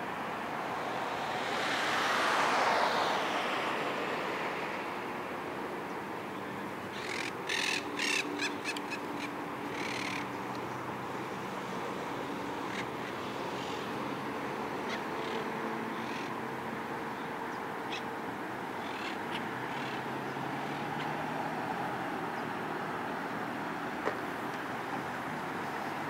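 Steady city traffic, with one vehicle passing close about two seconds in. A quick series of short, harsh bird calls comes around seven to ten seconds in.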